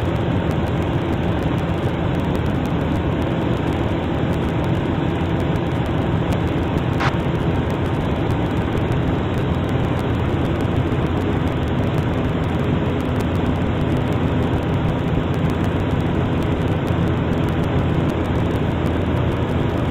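Piper Super Cub's piston engine and propeller droning steadily in cruise flight.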